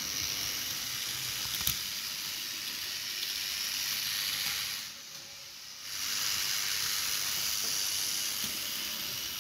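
Vintage Märklin HO model steam locomotive running on old all-metal track: a steady hissing whirr from its motor and wheels. It fades briefly about five seconds in, with a single click near two seconds.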